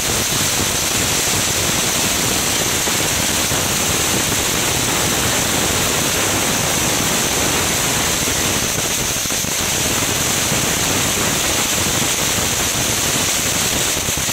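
Crackling ground fountain firework burning, a steady loud hiss of spraying sparks with a dense crackle running through it.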